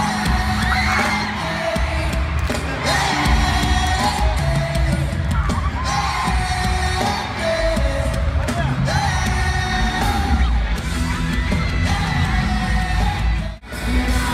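Loud live pop-rock band with a lead singer and heavy bass, heard from within the arena crowd, with fans yelling and whooping over it. Near the end the sound cuts out for an instant.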